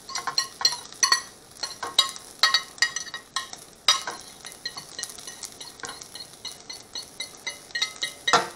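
A utensil scraping and tapping against a plate, knocking the last bits of diced food into a frying pan: many irregular sharp clinks that ring briefly. Under them, diced meat, onion and green beans sizzle steadily in the hot pan.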